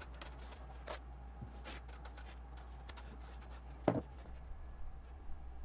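Faint handling sounds of masking tape being laid on a kayak hull: soft rustles and small ticks, with one sharper click about four seconds in.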